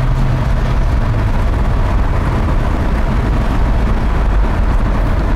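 Cabin noise of a 1966 Ford Mustang fastback driving at speed with the windows down: a steady low rumble of engine, tyres and wind.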